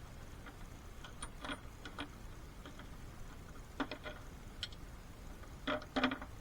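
Irregular light clicks and knocks of hand tools and metal parts being handled during car suspension work, with the loudest pair of knocks near the end.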